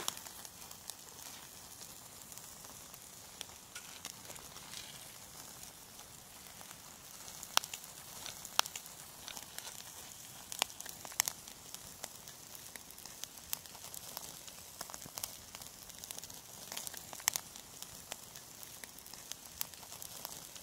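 Faint scattered crackles and sharp little clicks, about one every second or two, over a quiet steady hiss.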